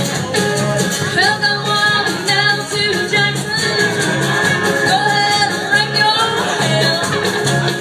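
Live country band playing: a woman sings lead over electric guitars, bass and drums with a steady beat.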